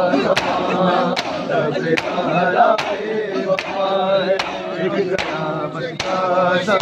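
A crowd of male mourners chanting a noha together over the sharp slaps of matam: hands striking bare chests in unison, about once every 0.8 seconds.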